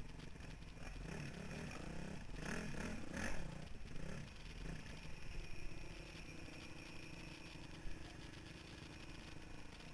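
Honda CRF450R dirt bike's single-cylinder four-stroke engine running on a rough trail, revving up and down a couple of seconds in, then settling to a steadier note.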